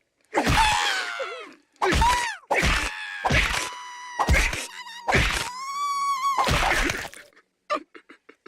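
A wounded Ewok's high-pitched, wordless cries of pain: a string of about seven squeals, each bending in pitch, one held for about a second near the end, trailing off into faint whimpers.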